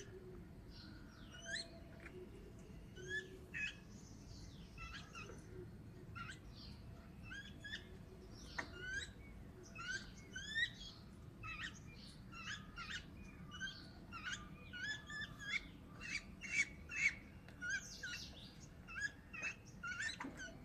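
Babblers calling: a steady run of short, squeaky chirps and chatter notes, coming thicker in the second half.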